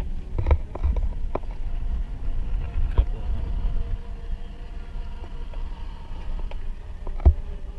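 2009 Hummer H3T Alpha driving over a rough dirt trail: a steady low rumble with knocks and jolts over the bumps, the loudest a sharp thump near the end.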